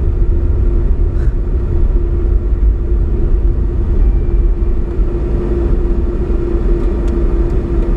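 A car being driven: the steady low rumble of the engine and tyres on the road, with a constant hum running through it, heard from inside the car.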